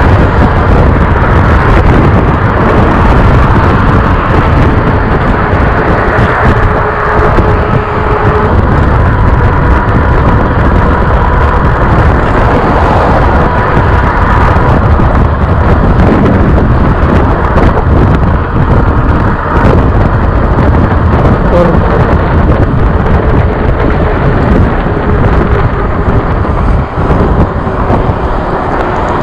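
Wind buffeting the microphone and road and traffic noise while riding an e-bike, a loud, dense, steady rumble heaviest in the low end. A faint steady whine runs under it through the first half.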